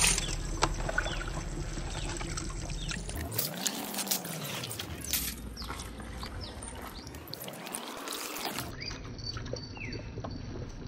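Wet rice tipped by hand into a large aluminium pot of boiling chicken biryani liquid, the grains pattering and splashing into the water in irregular handfuls.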